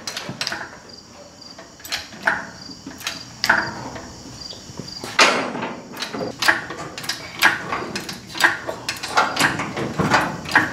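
Irregular knocks, clicks and light metallic clanks from tools and metal parts being handled during fuel-system work, with a faint high chirp repeating in the first half.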